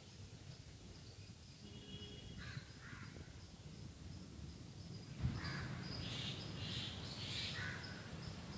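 A bird calling in woodland: two short calls about two and a half seconds in, then a run of four or so calls from about six seconds in. A single low thump comes just after five seconds.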